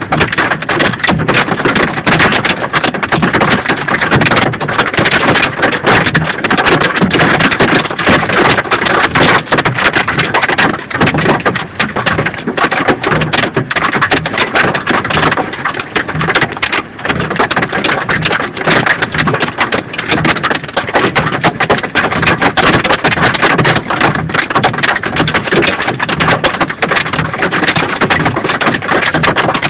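Hail and heavy rain pelting the van's roof and windshield, heard from inside the van as a dense, continuous clatter of hits.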